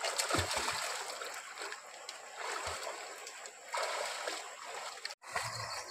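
Water splashing and sloshing as a child swims and kicks in a shallow river pool, with a few dull low thumps. The sound cuts out for a moment about five seconds in.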